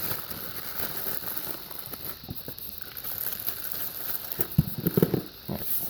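Plastic packaging crinkling and rustling with scattered clicks and knocks as a boxed speaker and its plastic cover are handled and unpacked.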